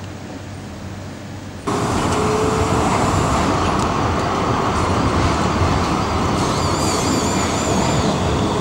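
Tram passing close by on street track: loud rolling noise that comes in suddenly about two seconds in, with a wavering high whine near the end.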